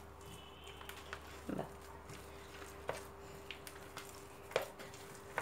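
A spoon stirring thick rice vada batter in a plastic bowl: soft mixing with a few short clicks of the spoon against the bowl, over a faint steady hum.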